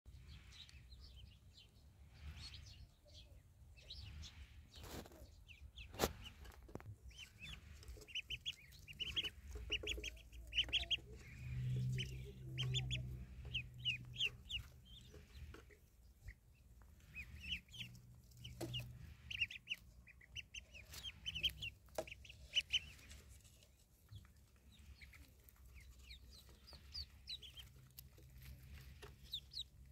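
Ducklings peeping: many short, high chirps in quick runs, busiest in the middle. A couple of sharp clicks come near the start, and a low hum comes and goes in the middle.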